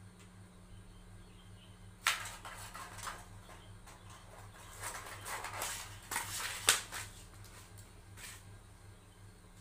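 Embossed aluminium foil sheet crinkling and rustling in irregular bursts as it is handled and cut with scissors, with a steady low hum underneath.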